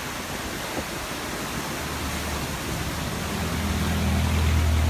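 Fast, churning floodwater rushing through a spillway: a steady, loud rushing noise. A low rumble builds underneath from about halfway through.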